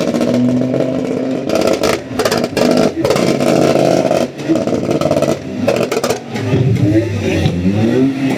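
Vehicle engine revved hard and held high, dropping off briefly a few times, with the revs climbing again near the end.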